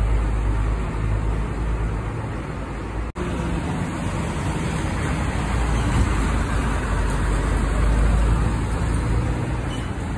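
Diesel engines of long-distance coaches running with a steady low rumble. The sound drops out for an instant about three seconds in.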